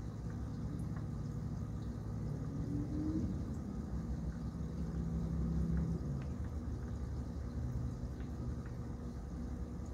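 Low, steady background rumble and hum, with a short rising tone about three seconds in and a held tone that drops away about six seconds in.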